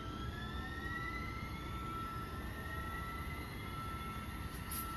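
LYNX Blue Line Siemens S70 light rail vehicle accelerating: its traction motors give an electric whine whose tones climb slowly in pitch, over a low rumble, with a steady high tone beneath. Short bursts of hiss come near the end.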